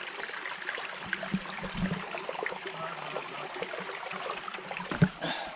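Shallow creek water running over rocks, a steady wash, with a few low thumps and one sharp knock near the end.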